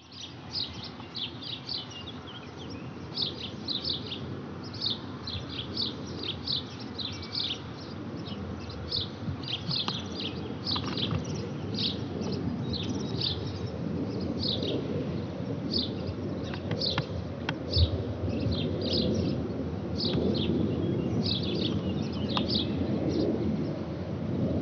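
Small birds chirping over and over, while underneath the deep rumble of a Eurofighter Typhoon jet cruising far overhead swells steadily louder.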